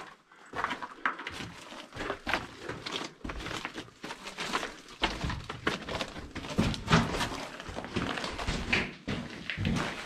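Footsteps and scrambling over rock in a mine passage: a steady run of irregular scuffs and knocks.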